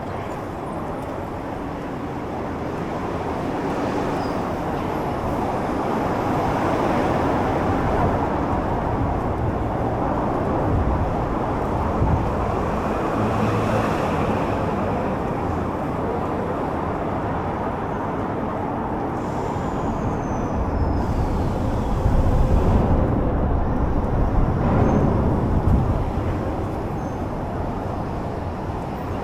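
Road traffic noise: vehicles passing steadily, swelling twice as heavier vehicles go by, with low rumbling surges near the end.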